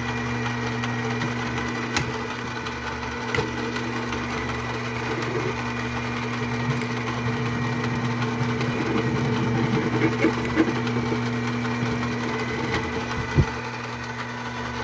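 Mini lathe running steadily with a drill bit cutting a centre hole into the Berdan primer of a 7.62x54R case. The motor's hum is steady, with a few sharp clicks scattered through it.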